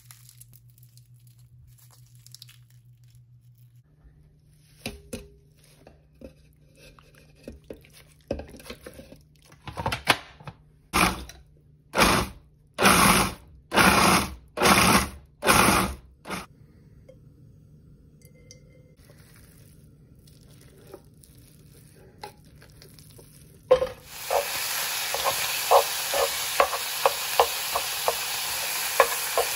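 A run of about eight loud, noisy strokes, each about half a second long and roughly a second apart. Near the end, food goes into a hot pan with a thud and starts sizzling steadily, with frequent pops and crackles from the oil.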